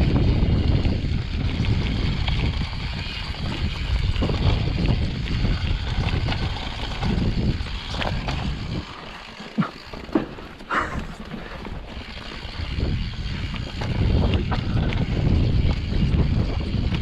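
Mountain bike riding a rough trail: wind buffeting the microphone over tyre rumble and rattling knocks. It eases off about halfway through, where a few sharp clicks stand out, then picks up again.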